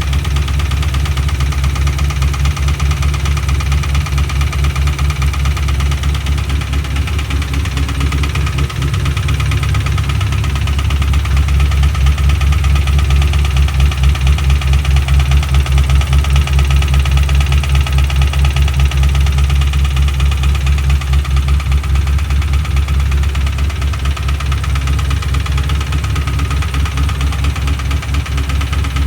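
Ford Mustang GT 4.6-litre three-valve V8 running with a fast, steady knocking tap, a little louder midway through. The owner cannot tell whether it is rod knock or noise from the cam phasers, which were just replaced along with the whole timing kit, lifters and followers.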